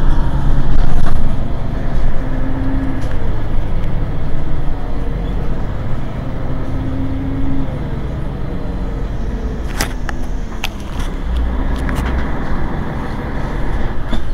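Mercedes-Benz Citaro G C2 articulated bus's engine running with a steady low rumble. A few sharp clicks come about ten seconds in.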